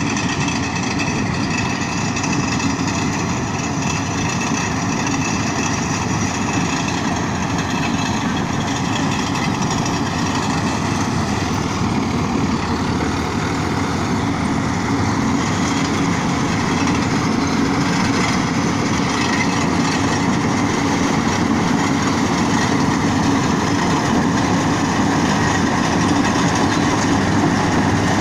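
Rice combine harvester running steadily: a dense engine and machinery noise with several high, steady whines over it, growing a little louder about halfway through.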